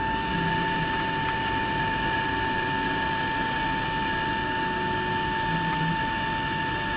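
Cabin noise of a Boeing 757-200 taxiing after landing: a steady rush of engine and air noise with a steady high-pitched whine.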